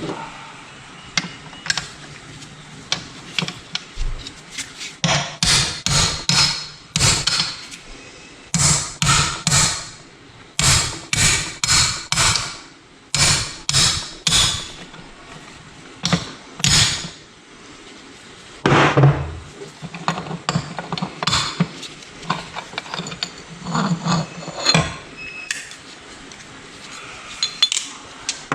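A hammer striking metal engine parts over and over, in runs of several sharp blows with a bright ring after each. The blows come quickly for about twelve seconds, stop briefly, then return more sparsely.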